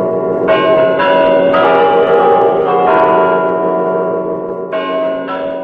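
Closing instrumental of a Tamil film song: sustained bell-like tones stepping from note to note over a steady drone, fading out near the end.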